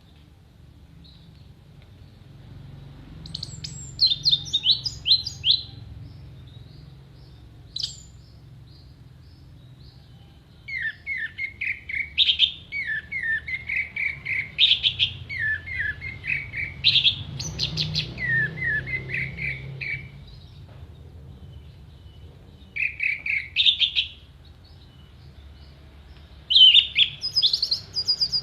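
Orange-headed thrush singing: phrases of fast, sharply repeated notes given in several bursts with short pauses between, the longest run lasting about ten seconds in the middle. A faint low hum runs underneath.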